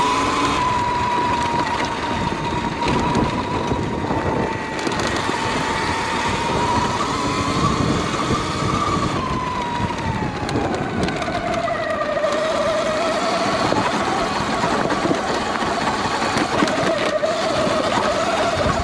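Sur Ron Light Bee X electric dirt bike climbing a dirt trail: its electric motor whines steadily, the pitch falling a little past halfway and rising again near the end. Heavy wind and trail rumble on the helmet microphone run underneath.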